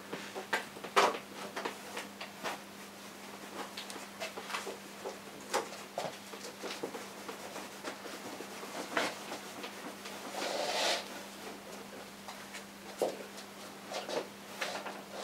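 Quiet sounds of oil painting: a bristle brush dabbing and stroking on canvas, with scattered light taps and a brief swish about ten seconds in, over a faint steady hum.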